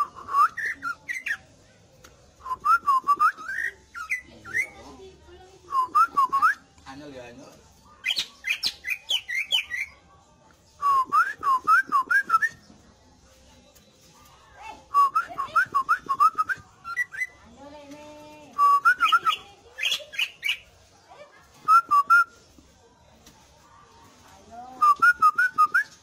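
Caged green leafbird (cucak ijo) singing: repeated bursts of rapid, high whistled notes, each phrase a second or two long with short pauses between, and one lower, drawn-out call about two-thirds of the way through.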